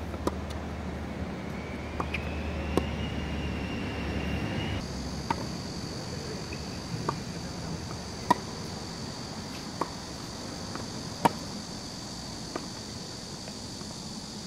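Tennis balls struck by rackets and bouncing on a hard court during a baseline rally: sharp pops every second or two, the loudest from the near player's racket. A steady high-pitched insect buzz comes in about five seconds in.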